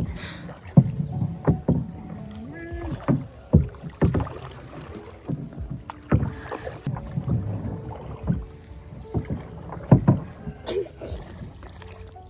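A heavy wooden paddle worked from a small boat: irregular knocks and splashes, roughly one every second or two, as the blade goes into the water and the shaft bumps the boat.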